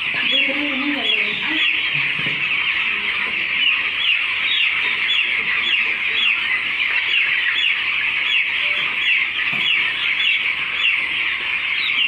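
A flock of hundreds of young broiler chickens peeping together without pause in a dense chorus of short, high, falling cheeps.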